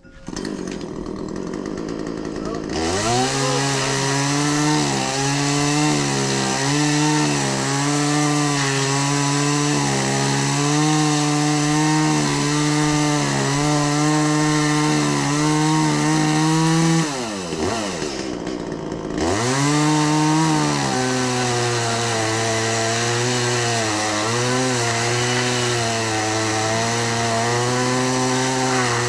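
Chainsaw running at full throttle, its pitch wavering as it cuts into the tree. About 17 s in it drops to a low idle, then it revs back up a couple of seconds later and keeps running.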